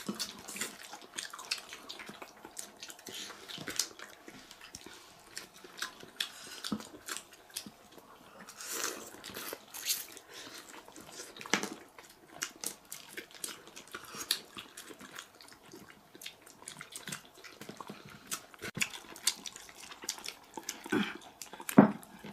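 People eating at a table: chewing and lip-smacking over stewed fish, with chopsticks clicking against bowls, in an uneven string of short, sharp sounds.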